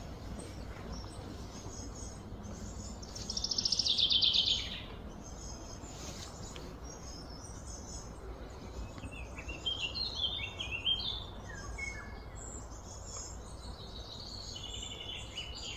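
Wild birds singing: a loud, rapid trill about three seconds in lasting a second and a half, a run of short chirps around ten seconds, and another trill starting near the end, over a steady low background hum.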